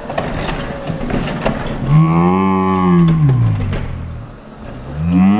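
Plastic battery-powered toy Christmas trains clattering on their track and crashing head-on, with sharp clicks as one locomotive derails and tips over. Then a man's voice gives two long, drawn-out "whoa" calls, each rising and then falling in pitch.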